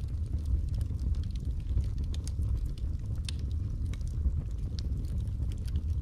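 Logs burning in a fireplace: a steady low rumble of the fire with scattered sharp crackles and pops from the wood.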